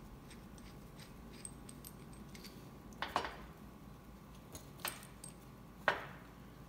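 Small steel hardware clinking in gloved hands: a heim joint, bolt and washers handled and set against steel plates, with three sharp metal clinks about a second or two apart in the second half and faint rattles between.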